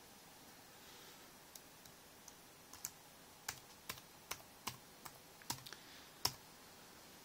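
Keys on a Samsung NC10 netbook's keyboard being typed: a quiet run of about a dozen irregular key clicks, with a louder final keystroke near the end, as a login password is entered.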